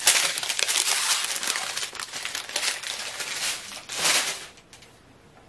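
Small plastic bags of diamond-painting drills crinkling as they are handled, a dense run of fine crackles that dies away near the end.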